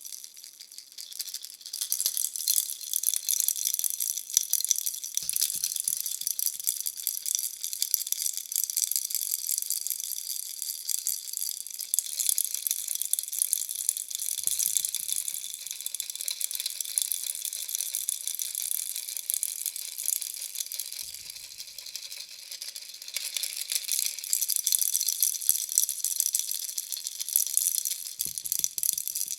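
Bunny-shaped baby rattle toy shaken continuously: a dense, fast rattling that eases off briefly just after the start and again about twenty-two seconds in.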